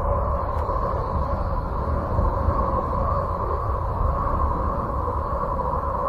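Spacecraft plasma-wave radio signals from Uranus converted into audible sound: a steady low rumble with two held humming tones above it and a faint high whine.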